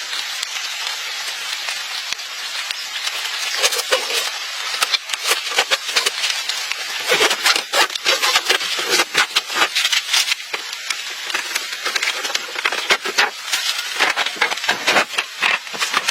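Scraping and rubbing work noise, dense with quick irregular clicks and knocks over a steady hiss.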